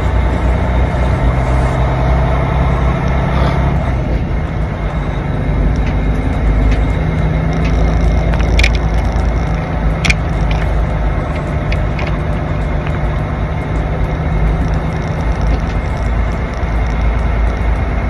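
Semi-truck's diesel engine running, heard from inside the cab as a steady low rumble whose pitch shifts a few seconds in. A couple of sharp clicks about halfway through.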